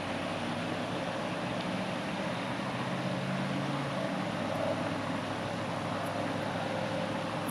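Steady background hiss and rumble of distant vehicle traffic, with a faint low engine hum that fades out about four seconds in.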